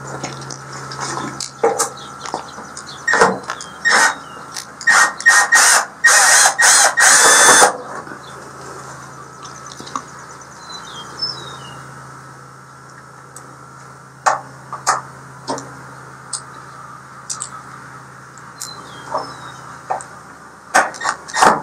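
Power drill/driver backing screws out of a pellet grill's sheet-metal hopper, in short bursts with clicks. The longest burst comes about six seconds in; after that there are only scattered clicks. Birds chirp faintly a couple of times.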